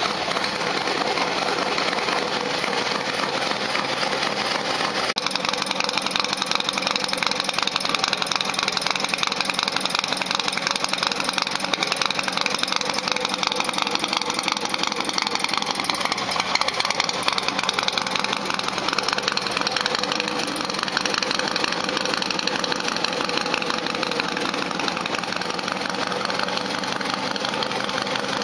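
Harley-Davidson V-twin motorcycle engine idling steadily, a continuous run of rapid firing pulses that the uploader calls a cough. The sound changes abruptly about five seconds in.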